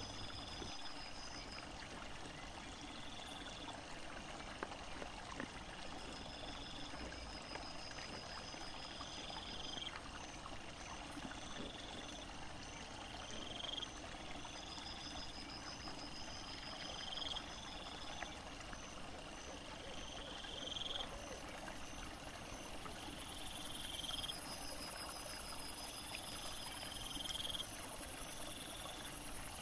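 Night insects calling: a short rising chirp repeats about every second and a half, with fast pulsing trills above it, and a continuous high buzz sets in about three-quarters of the way through. A steady low hiss of the running stream lies underneath.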